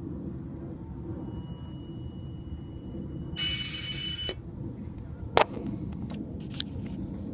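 BMW 335i running with a steady low rumble. About a second in a thin, steady high-pitched whine starts. About three seconds in a short loud burst of hiss joins it, and both cut off together; a sharp click follows, then a few fainter ones.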